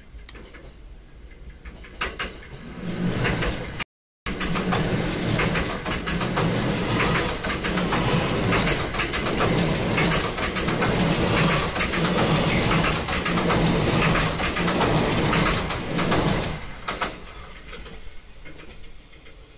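A train crossing the railway bridge directly overhead, heard from underneath: a loud rumble with rapid wheel clatter that builds about three seconds in and fades near the end.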